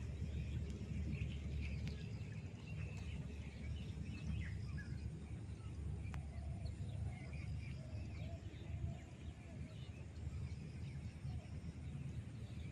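Outdoor ambience: scattered short bird chirps over a steady low rumble, with one sharp click about six seconds in.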